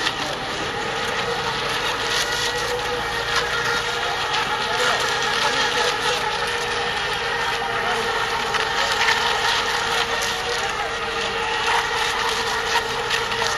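Several ECO MINI class electric RC racing boats running at speed together, giving a steady whine of several pitches at once.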